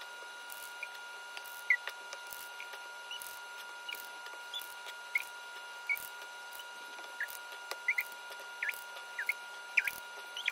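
A batter scoop working cupcake batter into a metal muffin tin: light clicks and many short, high squeaks scattered through, over a steady high-pitched hum.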